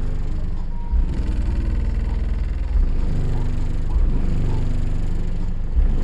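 Car audio subwoofers playing heavy bass music, a deep low rumble with stronger bass hits every second or two.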